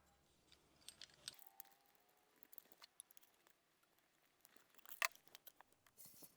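Light metallic clicks and taps from a chisel and honing guide being handled, with a sharper knock about five seconds in.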